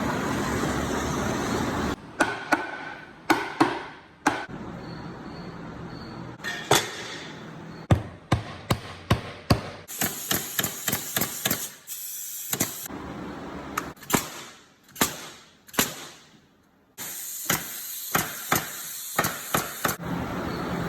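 Hammer blows on wooden stair framing, sharp strikes with short ringing tails, coming in runs of about two a second. The runs are broken by abrupt cuts, and a steady background noise runs through some stretches.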